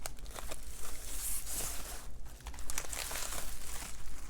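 Packaging crinkling and rustling as it is handled, with scattered small clicks and crackles.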